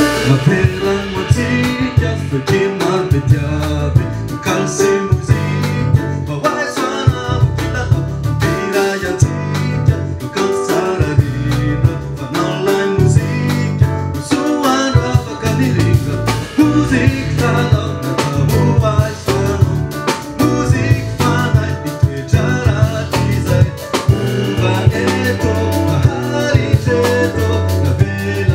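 Live band music: a man singing into a microphone over electric keyboard, drum kit and guitar.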